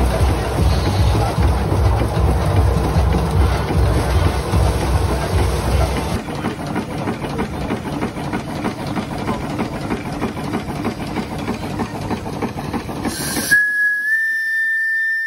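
Steam locomobile driving a threshing machine, a loud low rhythmic running noise that eases about six seconds in. Near the end the machine noise cuts off abruptly and a steam whistle blows one steady high tone, rising slightly just after it starts.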